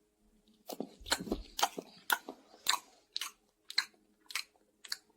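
A dog chewing something crunchy, with about ten sharp crunches at roughly two a second.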